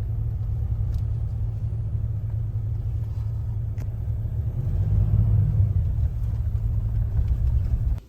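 Car driving, with a steady low road and engine rumble that swells a little about two-thirds of the way through and cuts off suddenly at the end.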